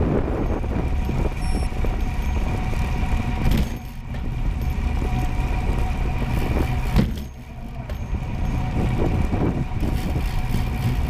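Wind buffeting the microphone on a fast downhill ride, over a low rumble of tyres on asphalt, with a faint steady whine. The wind noise drops briefly twice, about four seconds and seven and a half seconds in.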